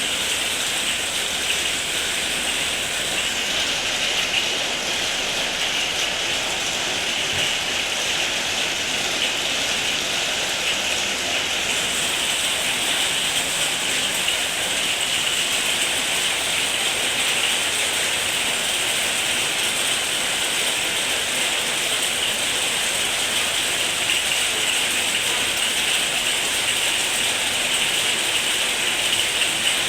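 Heavy rain falling steadily: a dense, even pattering of drops with no let-up.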